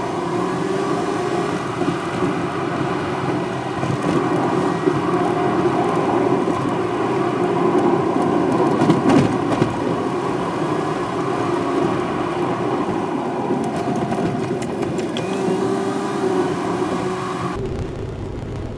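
Car cabin noise while driving: a steady engine drone and road rumble with a faint hum, turning duller and quieter near the end.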